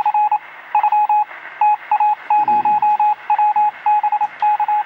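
Electronic beep tone at one steady pitch, keyed on and off in short and longer pulses in irregular groups, like a Morse code signal.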